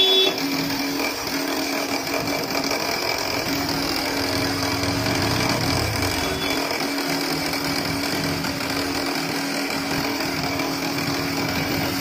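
Electric motor of a kite-string winding machine running steadily, spinning a spool that winds red manja off a large reel: a steady hum with a hiss of machine noise.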